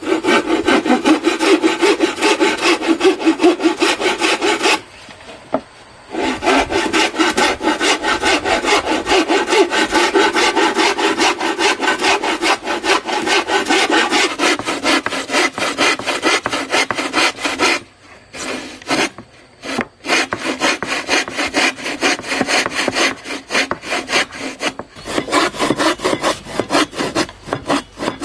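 A steel-framed bow saw cutting across a wooden plank by hand, in rapid, even back-and-forth strokes that stop briefly twice.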